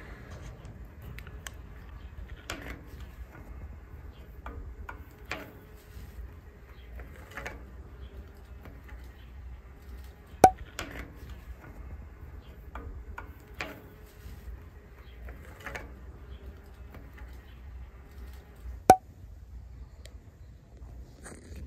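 Pliers working the spoke nipples of a bicycle wheel: scattered small metallic clicks and ticks, with two sharp, louder clicks that ring briefly, about ten seconds in and near the end, over a low steady rumble.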